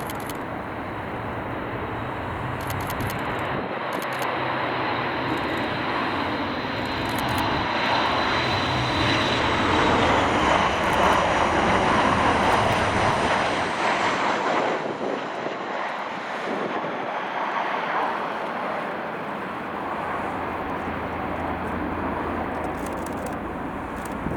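Four-engined BAe 146-200 jet passing on its arrival, with turbofan noise building to a peak about halfway through and then easing off. A high engine whine drops in pitch as it goes by.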